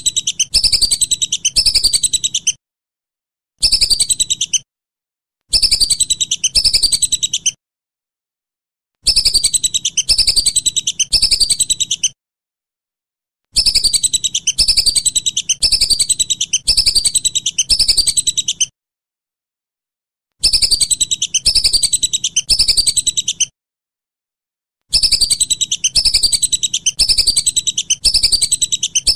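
Whistling duck (belibis) calling in repeated high, falling whistles, about two a second. The calls come in bouts of a few seconds broken by short gaps of dead silence.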